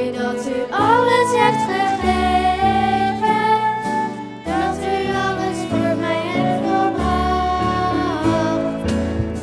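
A group of children singing a worship song live, accompanied by acoustic guitar, violin and flute, with long held notes.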